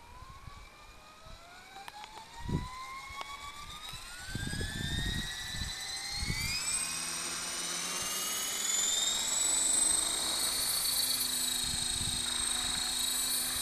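Electric RC helicopter spooling up: a whine that rises steadily in pitch over several seconds as the rotor comes up to speed, then holds steady as the helicopter lifts off and hovers. A few dull thumps come in the first half.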